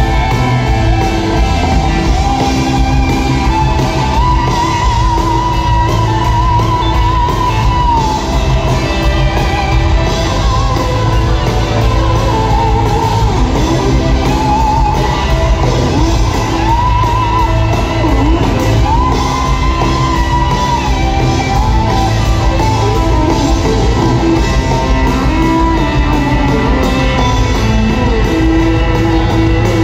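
Live band music in a large theatre, heard from the audience with the hall's echo: a guitar-led song with a steady low end and a wavering, bending lead melody.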